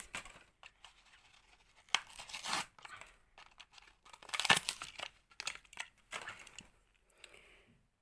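A Hot Wheels blister pack being torn open by hand: the cardboard backing card tears and the plastic blister crinkles in irregular bursts, the loudest about halfway through.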